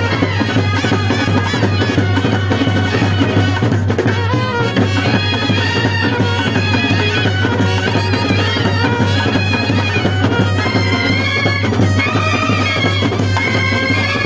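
Kerala band set playing a Malayalam film song at full volume: trumpets and other brass carry the melody over snare and tom drums with cymbal crashes.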